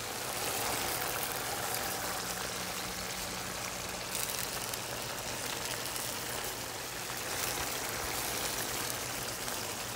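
Tomato and beef stew simmering hard in a skillet: a steady sizzling and bubbling as the sauce reduces. A faint steady low hum runs underneath.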